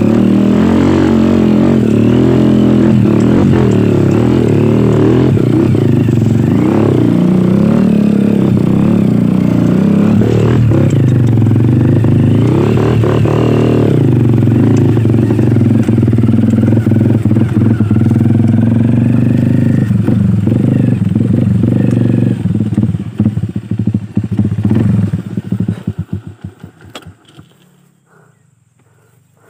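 Dirt bike engine running as it rides a rough grassy trail, its pitch rising and falling with the throttle, with rattling from the bike. About 23 seconds in the sound breaks up and falls away to quiet.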